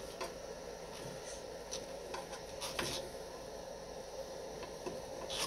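Faint scattered clicks and rubbing of side cutters and wiring being handled inside an inverter enclosure, one click a little louder almost three seconds in, over a steady background hum.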